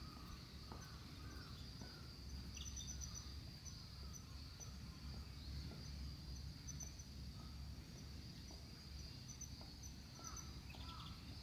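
Outdoor ambience of insects: a steady high-pitched insect drone with short chirping trills repeating every second or so, some lower bird-like chirps, and a faint low rumble underneath.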